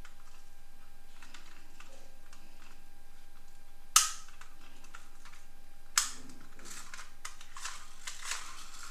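Small diecast toy cars being handled: two sharp clicks about two seconds apart, the first the loudest, then lighter clicks and rustling near the end.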